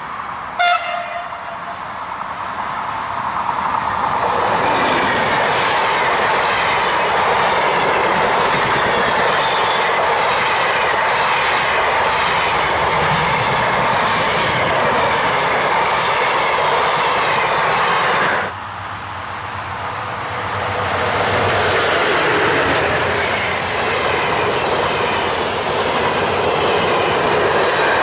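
A short horn toot from a Swiss train about half a second in. Then a train passes at speed with a steady rush and wheel clatter over the rail joints. After a sudden break, another train passing.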